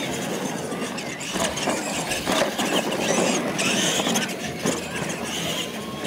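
Radio-controlled monster trucks racing side by side, their motors whining and tyres scrabbling on the pavement, with a sharp thump about three-quarters through as one lands off a jump ramp.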